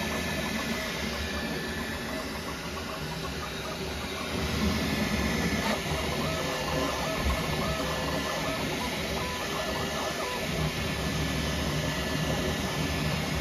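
Bambu Lab X1 Carbon 3D printer running a print at its Standard speed setting: the stepper motors whir in quick, shifting tones as the print head sweeps back and forth, over steady fan hiss. It gets a little louder about four seconds in.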